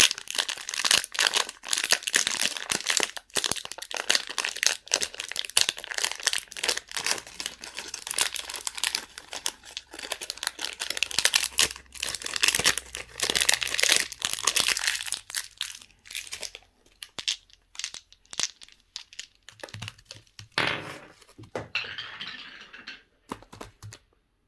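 Candy wrappers and packaging crinkling and tearing as they are opened: dense crackling for about sixteen seconds, then sparser, stopping shortly before the end.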